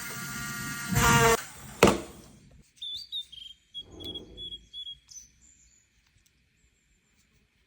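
Small rotary engraving tool running with a steady whine, louder for a moment about a second in, then stopping with a knock just under two seconds in. Faint high chirps follow.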